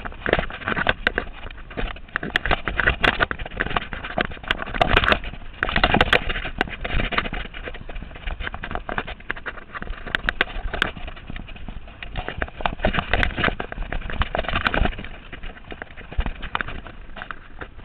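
Mountain bike clattering down a rocky dirt trail: a dense, irregular run of sharp knocks and rattles from the tyres, chain and frame over the rocks, over a steady rush of tyre and wind noise.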